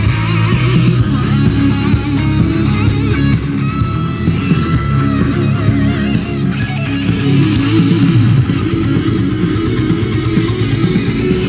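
Loud rock music with electric guitar playing from three homemade ammo-can Bluetooth speakers driven from a phone's headphone jack at full volume.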